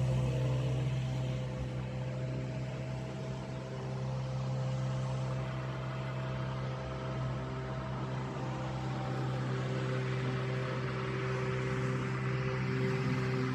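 Lawn mower's small gasoline engine running steadily with an even hum.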